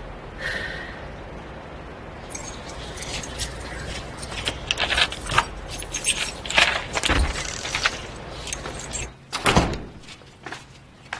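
Keys jangling and clinking in a run of small sharp metallic clicks, then a louder knock about nine seconds in, like a door being opened.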